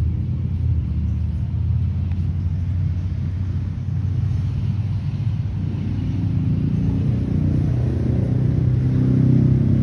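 A steady low mechanical hum and rumble, growing a little louder near the end.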